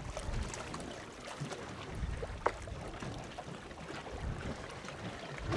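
Wind and water sloshing against a boat's hull at sea, with a steady low rumble and two small knocks, the sharper one about halfway in.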